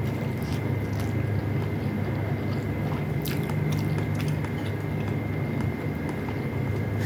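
Close-miked chewing of beef loaf and rice, with a few sharp clicks, over a steady low hum.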